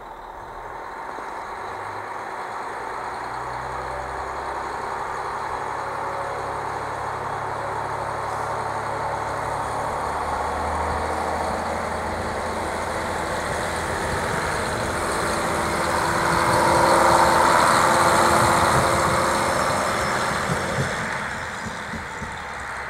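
JR Hokkaido KiHa 40 diesel railcar pulling away from the station, its diesel engine working as it accelerates. It grows louder as it passes close by about three-quarters of the way through, then fades as it moves off.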